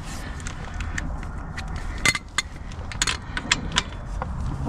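Irregular metallic clicks and clinks of a socket wrench with a 17 mm socket being worked on the Honda Navi's oil screen cap bolt. The clicks are spaced unevenly and bunch up about two to four seconds in.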